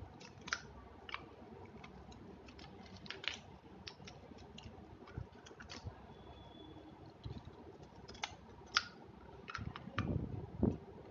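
Plastic pens being handled: scattered small sharp clicks and taps, at irregular times, as caps and barrels are fiddled with. A few duller knocks come near the end.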